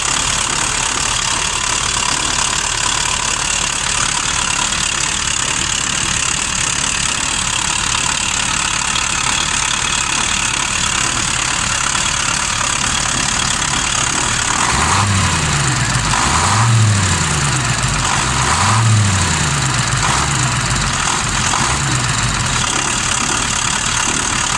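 KamAZ V8 diesel engine in a Ural-4320 truck idling steadily, with a ticking knock that the owner cannot place: the air compressor or its drive. In the second half, a few short sounds rise and fall in pitch over the running engine.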